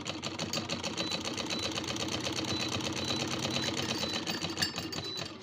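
Sewing machine running steadily at speed, its needle mechanism making a rapid, even clatter of many stitches a second.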